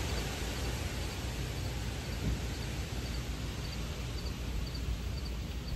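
Outdoor background ambience: a steady low rumble, with faint short high chirps repeating through it.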